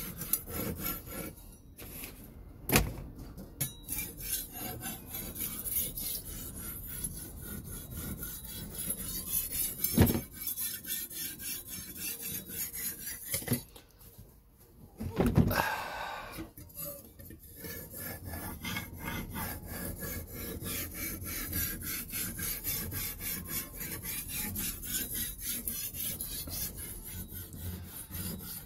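Steel kitchen knife blade stroked back and forth over a wet 1000-grit hard Arkansas sharpening stone, a steady rhythmic gritty scraping as the second side of the edge is ground to raise a burr. A couple of sharp knocks are heard, and the strokes stop briefly about halfway through before resuming.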